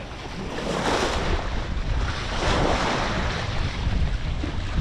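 Sea water rushing and splashing past a moving sailboat's bow, swelling and easing a few times, with wind buffeting the microphone in a low rumble.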